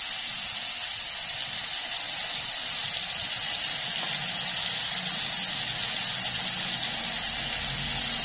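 Prawns sizzling in hot oil in a non-stick wok as they are stirred with a wooden spatula: a brief, quick fry meant to keep them soft. A steady sizzling hiss that grows a little louder about three seconds in.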